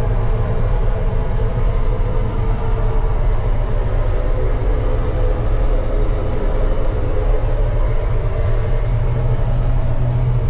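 Steady low rumble and drone of an intercity coach travelling on the road, its engine and running noise heard from inside the vehicle.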